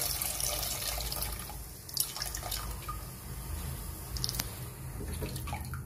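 Water poured from a plastic jug into an aluminium pressure cooker of broth, splashing into the liquid, the pour growing quieter after about a second and a half.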